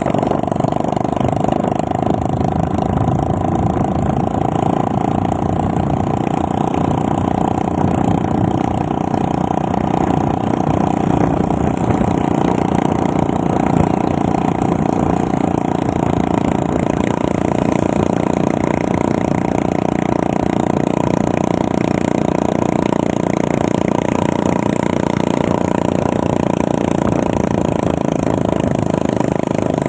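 Motorcycle engine running steadily while riding at cruising speed, with a steady rush of wind and road noise.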